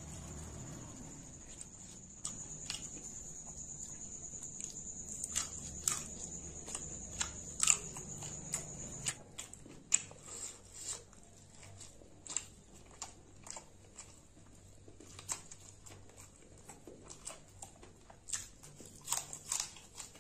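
Eating sounds from a whole fried fish eaten by hand: chewing and mouth smacks, with scattered sharp clicks as fingers pull the flesh apart.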